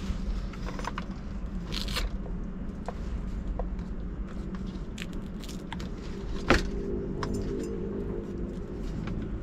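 Small clicks and scrapes of a metal detector's headphone cable and plastic fittings being handled, with one sharper click about two thirds of the way through. A steady low hum runs underneath.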